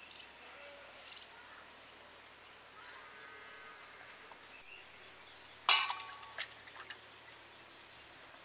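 Faint background hiss, broken about six seconds in by one short animal call, followed by a couple of light clicks.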